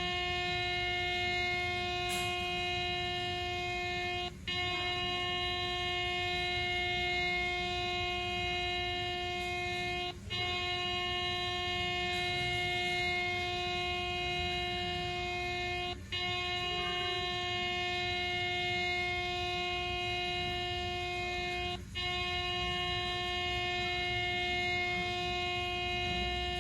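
Air horn sounding one steady, unwavering note, broken by a brief gap about every six seconds before it sounds again at once.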